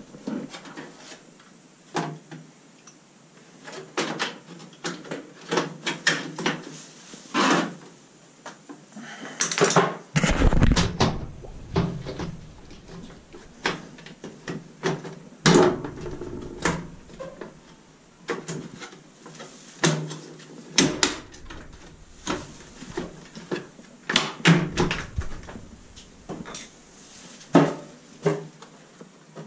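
Irregular clicks, knocks and rattles of hand work on a washing machine's door-lock area, with plastic and metal parts and connectors being handled and fitted.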